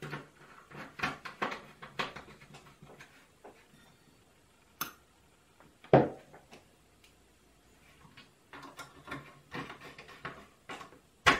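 Workbench handling noises: scattered small clicks and taps of a screwdriver, screws and parts being picked up and fitted around an opened Commodore C64C, with a sharp knock about six seconds in and another near the end.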